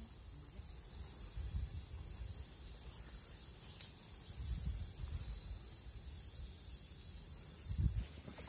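Steady high-pitched chorus of night insects such as crickets, with a few low thumps. The chorus cuts off near the end.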